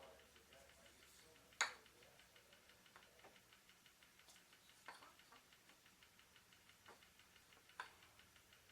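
Near silence with a few faint, sharp clicks and light ticks of hands handling a wooden kendama and its packaging; the clearest click comes about a second and a half in.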